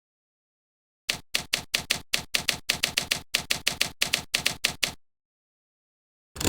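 A quick run of about twenty sharp mechanical clicks, roughly five a second, lasting about four seconds and starting and stopping abruptly. A louder rushing burst begins at the very end.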